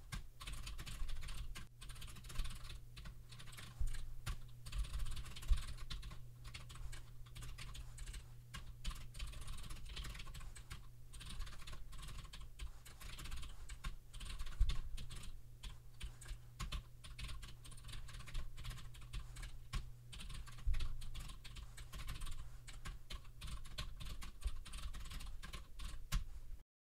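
Continuous typing on a computer keyboard: a quick, irregular run of keystrokes over a low steady hum, cutting off abruptly near the end.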